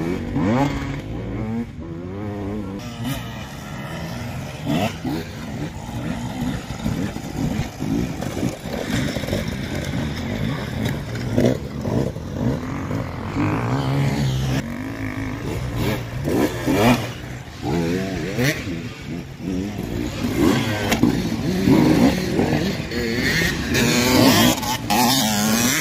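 Enduro dirt-bike engines revving up and down again and again as the bikes are ridden through a rough, muddy off-road section.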